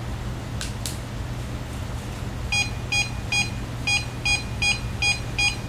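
Electronic device beeping: short, identical high beeps at about four a second, starting about halfway through, with one brief pause, over a steady low hum.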